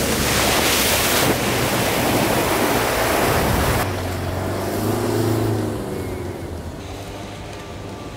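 Mitsubishi Triton 4WD ute ploughing through a muddy bog hole: a loud rush of splashing water for the first few seconds, then the engine rising and falling in revs as the ute drives on, growing quieter near the end.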